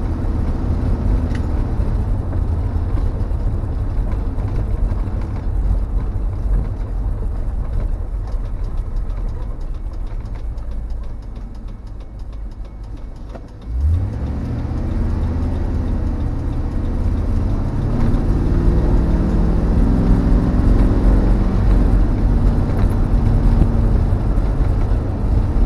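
1952 Ford F1 pickup's engine and road noise while towing a loaded trailer: it runs steadily, eases off and quietens as the truck slows, then picks up sharply a little past halfway and climbs in pitch as it accelerates, dropping once as it changes gear before climbing again.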